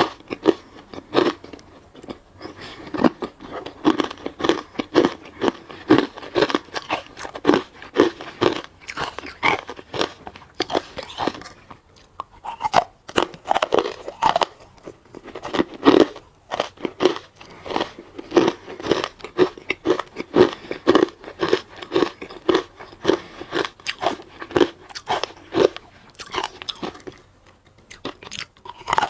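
A person biting and chewing hard ice close to the microphone: a steady run of loud, crisp crunches about twice a second, with two short lulls.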